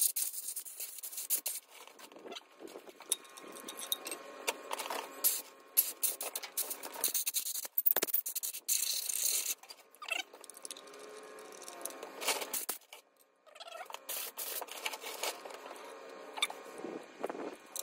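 Scattered scrapes, clicks and light metal rattles as a chainsaw's chain and bar are taken off and the bar and saw body are handled and scraped clean with a hand tool.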